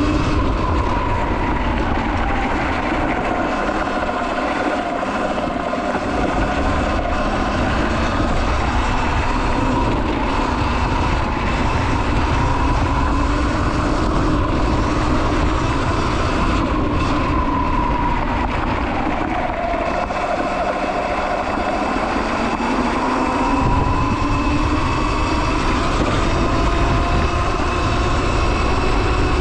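Sur-Ron X electric dirt bike's motor and drivetrain whining while ridden, the pitch sliding down and up with road speed and climbing again near the end as the bike speeds up to about 29 mph. Heavy wind rumble on the microphone runs underneath.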